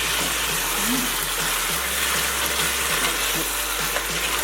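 Chicken frying in oil with curry seasoning: a steady sizzle in the pan.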